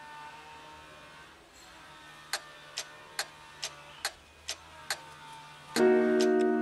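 Background film music: soft held notes with a clock ticking about twice a second from about two seconds in, then a loud piano chord comes in near the end.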